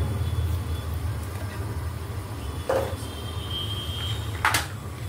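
Steady low hum in the kitchen, with two short knocks about two and a half and four and a half seconds in as whole spices are dropped into a pot of water. A brief high tone sounds between them.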